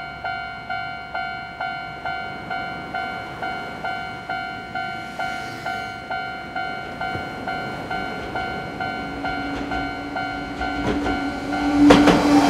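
Japanese railway level-crossing warning bell ringing a steady two-tone ding, about two and a half strikes a second. Near the end a green-and-cream electric train rushes through the crossing, louder, with a low steady tone under it.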